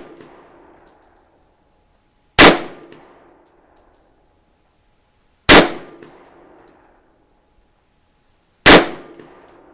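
Three 9mm shots from an FN FNX-9 pistol, fired slowly about three seconds apart, each report ringing off for about a second.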